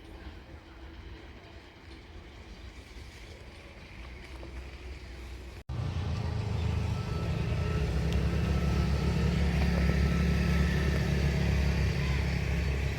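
Vehicle rumble: fairly quiet at first, then after an abrupt cut a much louder, steady low rumble with a faint high tone over it.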